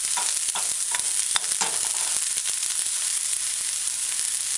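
Sliced onions and scallion sizzling in coconut oil in a stainless steel skillet, a steady hiss. During the first couple of seconds a metal cooking spoon knocks and scrapes against the pan as they are stirred.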